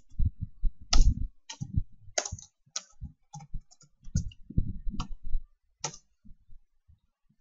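Typing on a computer keyboard: an irregular run of keystrokes with a few sharper strikes among them, thinning out near the end.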